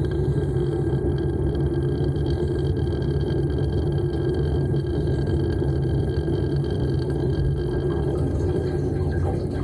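Dishwasher running its wash cycle, heard from inside the tub: a steady low rumble of the circulation pump with water spraying against the racks and walls.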